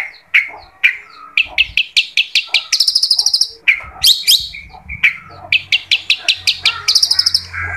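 Long-tailed shrike (cendet) singing: a fast run of sharp, harsh chattering notes, broken twice by quick rattling trills.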